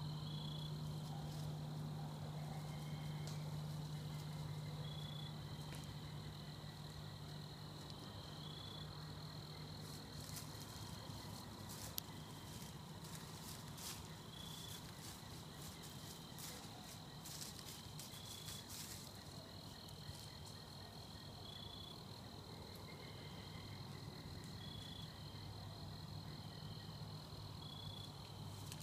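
Crickets trilling steadily, with short chirps repeating every second or two beneath the trill, over a low steady hum. Scattered faint ticks and rustles come in the middle of the stretch.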